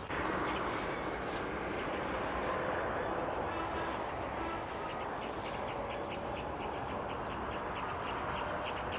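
Outdoor ambience: a steady background hiss with a few sharp clicks near the start. From about halfway through come short, high chirps, evenly spaced at several a second.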